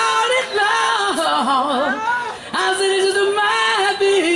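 A woman singing long held notes that slide up and down, with little instrumental backing heard behind her voice.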